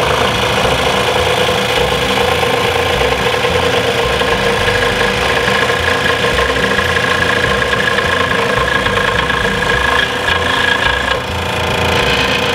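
WEN scroll saw running steadily, its reciprocating blade cutting an arc through a wooden CO2 car blank.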